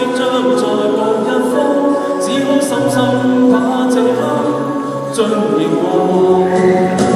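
A cappella group singing: several voices holding notes together in harmony, with no instruments.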